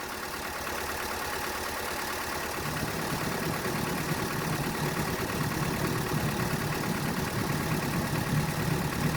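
A car engine idling steadily. About two and a half seconds in, a low pulsing hum joins as the car's electrical loads are switched on.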